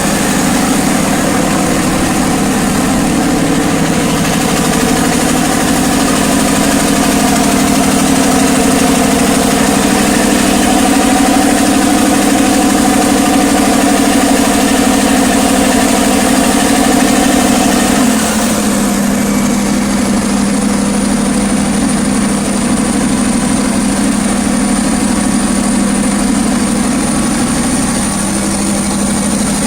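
500 kVA FG Wilson diesel generator set running with a loud, steady drone. About two-thirds of the way through, the sound abruptly turns duller, losing much of its hiss.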